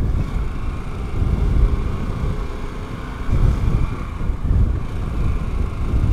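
Wind buffeting the microphone over the 2023 Harley-Davidson Pan America Special's 1252 cc 60-degree V-twin engine running as the bike rides along and picks up speed to around 47 mph. The wind rumble swells and dips unevenly, loudest a little after three seconds in.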